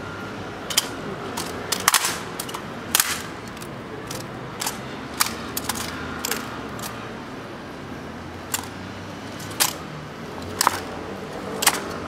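Rifle drill by an honor guard: a dozen or so sharp, irregular clacks as bayoneted M1 Garand rifles are caught, slapped and handled by gloved hands, some in quick pairs.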